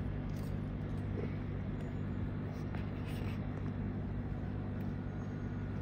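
Steady low hum with a few faint clicks and taps.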